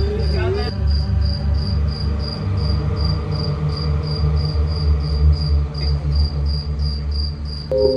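A cricket chirping in a steady, even rhythm of about three chirps a second, over a continuous low hum.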